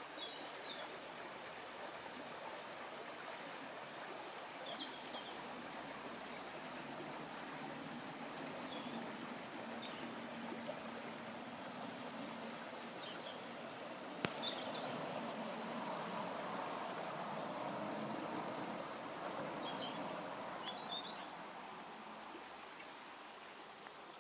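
Steady rush of running water, with scattered short bird chirps above it. A single sharp click comes about midway, after which the water is a little louder for several seconds before easing off.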